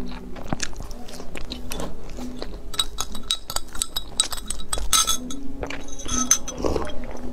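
Chopsticks clinking and tapping against a drinking glass as a milky drink is stirred, with short ringing glass tones. There are chewing mouth sounds before it and gulps of the drink near the end.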